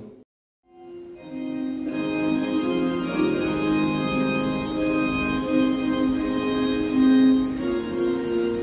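Organ playing slow, sustained chords. It starts about a second in, after a brief dropout.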